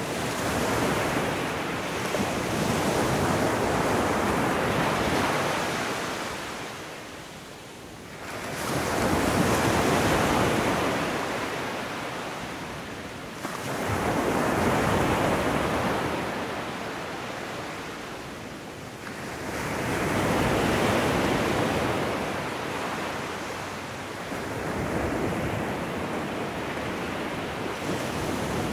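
Waves washing in and out: a rushing noise that swells and fades every five to six seconds.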